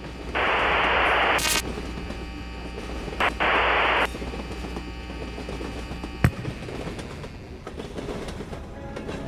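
Music-track audio with two loud bursts of hissing noise, each about a second long, and a single sharp hit about six seconds in.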